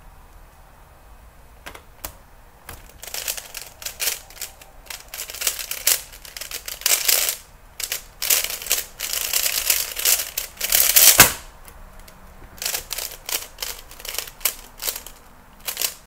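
Plastic 3x3 Rubik's cube being turned fast in a speedsolve: rapid, irregular clacking of the layers in runs, starting a couple of seconds in. There is a single sharp, loud knock about eleven seconds in, then a short pause before the clacking resumes.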